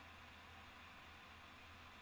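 Near silence: a faint, steady hiss with a low hum underneath, unchanging throughout.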